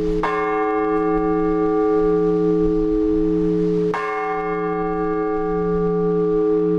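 An Orthodox church bell tolled slowly: one large bell struck twice, about four seconds apart, each stroke ringing on with a long, slowly waving hum until the next.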